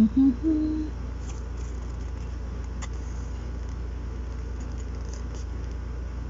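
Three short hummed notes from a person's voice, stepping up in pitch within the first second, then a steady low background hum with a faint click near the middle.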